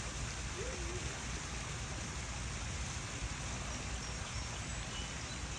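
Steady rushing noise with a low, flickering rumble and no distinct separate sounds.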